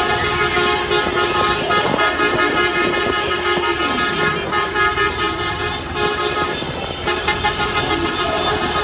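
Many car horns honking together without let-up, their overlapping tones mixed with sharp knocks. The sound eases briefly about seven seconds in.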